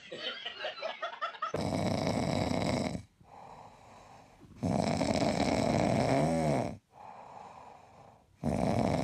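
A pet snoring: three long, loud snores of about two seconds each, with quieter breathing between them.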